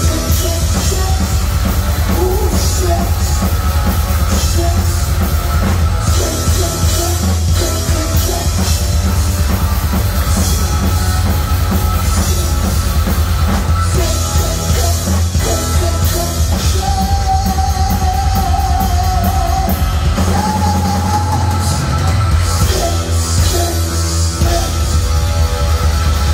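Heavy metal trio playing live: distorted electric guitar, bass guitar and drum kit, with a long held high note a little past the middle.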